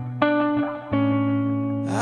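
Background music led by guitar: held notes that change about a quarter second in and again about a second in.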